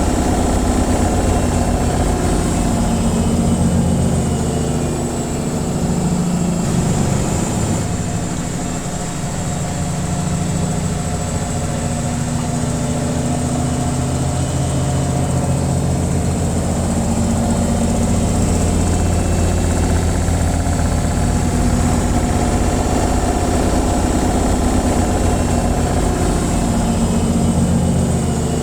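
Washing machine on its spin cycle: a steady low hum from the spinning drum and motor, with a thin high whine over it.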